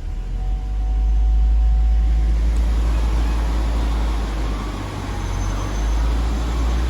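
Hummer H3's engine running with a steady deep low rumble that swells about a second in, as the stuck SUV is put under drive in four-wheel drive.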